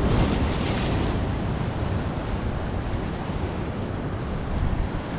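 Sea surf breaking and washing over shoreline rocks, with a louder hiss of surf in the first second, under a steady low rumble of wind on the microphone.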